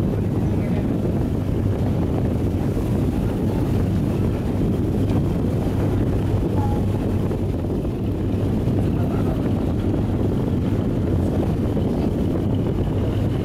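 Steady low drone of a boat's diesel engine running under way, with wind buffeting the microphone.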